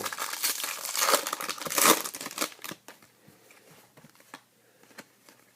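A baseball card pack's wrapper crinkling and tearing open, loudest about one second and two seconds in. After that only faint scattered ticks are heard.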